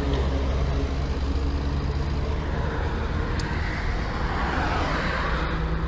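Steady low rumble of wind on a motorcycle camera's microphone, with a faint engine-like hum beneath that grows slightly near the end.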